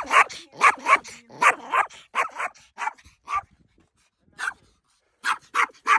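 A dog barking in short, sharp barks, many in quick pairs, for about three and a half seconds, then after a pause a single bark and another quick run of barks near the end.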